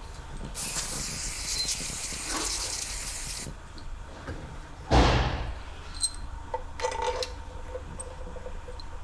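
Aerosol spray can hissing in one continuous spray of about three seconds. A single loud knock follows about five seconds in, then a few light metallic clinks.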